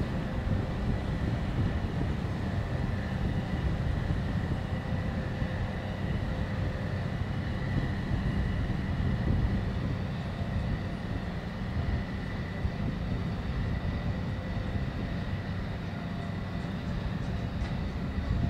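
Small cargo ship's engine running as it moves slowly under way: a steady low rumble with a thin, steady whine above it.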